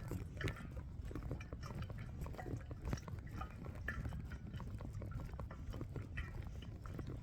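Footsteps crunching irregularly on a dirt trail, over a low rumble of wind and handling on the microphone.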